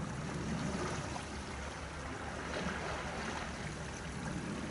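Steady shoreline ambience: a soft, even wash of water with a constant low rumble of wind on the microphone.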